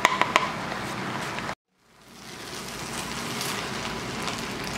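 Rice, pasta and vegetables sizzling in a hot pan while being stirred and tossed with wooden spatulas, with a few sharp clacks of spatula on pan near the start. The sound drops out completely for a moment about a second and a half in, then fades back.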